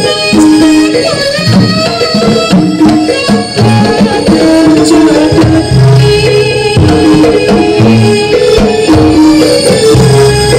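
Jaranan ensemble music playing loudly without a break: kendang hand drums beat a driving rhythm under held gong-chime notes and a high melody line.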